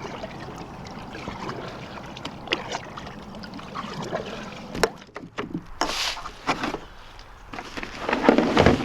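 Kayak being paddled out: light knocks and water noise, with two louder swishes about six and eight seconds in.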